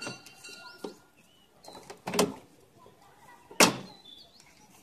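Plastic side panel of a Symphony air cooler being worked loose and pulled off: two sharp plastic knocks, about two seconds in and three and a half seconds in, the second louder. Faint bird chirps behind.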